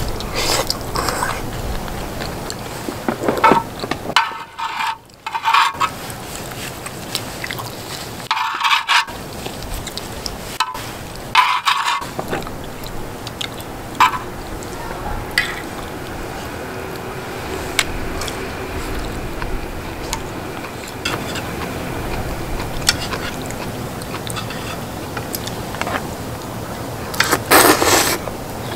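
Eating sounds: chewing and mouth noises with irregular short clicks and scrapes of utensils against cookware.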